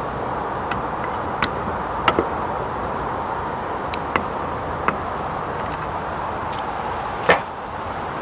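Diced potato, cauliflower and onion sizzling steadily in oil in a Trangia 25 pan on a gas burner, with sharp clicks now and then and a louder one near the end.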